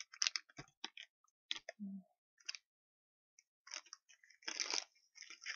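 Mouth sounds of someone eating Hershey's Symphony milk chocolate: irregular chewing and small wet clicks, with a brief low hum about two seconds in.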